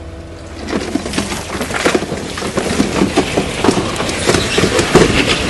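Loose rock clattering and cracking: a dense, irregular run of knocks starting about a second in.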